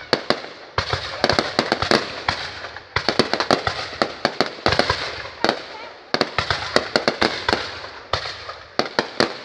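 Fireworks going off in rapid volleys of sharp bangs and crackles. A new volley starts about every two to three seconds and trails off.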